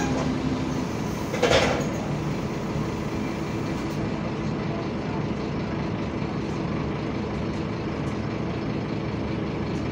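Scania bus's engine cooling fan and idling engine running steadily, heard from inside the saloon with the bus standing still. A short burst of compressed-air hiss comes about a second and a half in.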